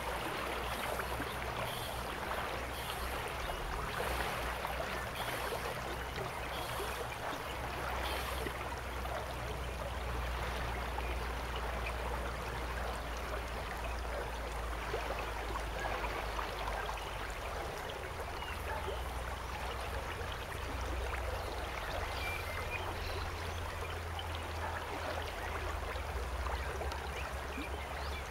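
River water running steadily over shallows, a continuous even rushing with light gurgling.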